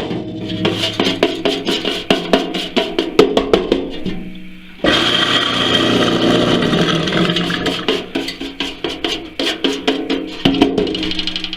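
Coffee grinder regrinding already-ground dried green peas: rapid, irregular clicking and crunching, a short lull about four seconds in, then a steadier grinding sound with clicking again near the end.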